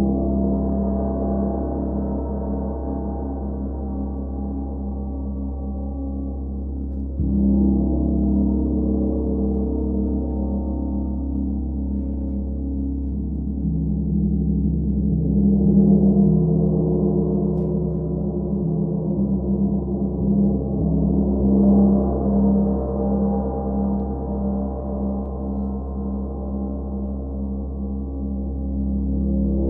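Deep, sustained drone of layered ringing tones, like a gong, used as an ambient sound effect. A new layer comes in about seven seconds in, and the drone swells louder twice later on.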